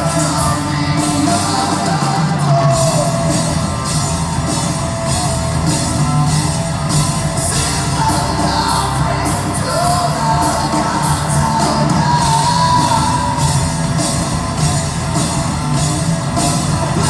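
Live hard rock band playing in an arena: electric guitars and bass through amplifiers, drums with steady cymbal hits, and a male singer's voice, with the echo of a large hall.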